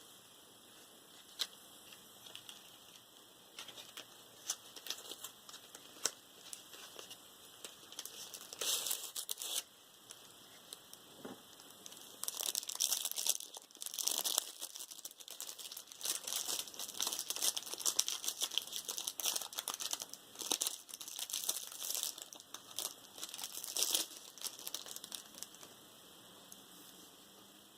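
Unboxing packaging being handled and unwrapped: a few scattered light clicks and taps, then bursts of crinkling and rustling from about eight seconds in, densest through the middle, dying away near the end.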